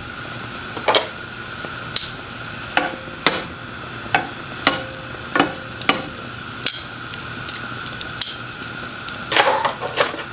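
Egg rolls frying in a shallow film of avocado oil in a nonstick skillet, sizzling steadily. About ten sharp metallic clicks sound as tongs tap the pan while the rolls are turned, with a quick cluster of clicks near the end.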